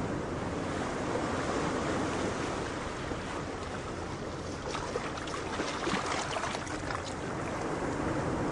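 Steady wash of ocean waves and wind, with a patch of light crackling splashes about five to seven seconds in.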